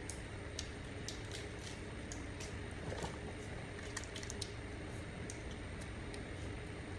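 Someone eating: scattered soft clicks and smacks of chewing over a steady background hum.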